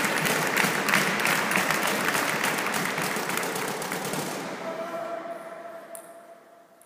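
Audience applauding, the clapping fading away over a few seconds until it is almost gone near the end.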